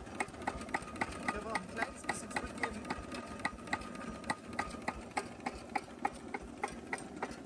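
Cunewalder single-cylinder hopper-cooled diesel engine idling very slowly, set to about 350–400 rpm, with an even knock about three times a second.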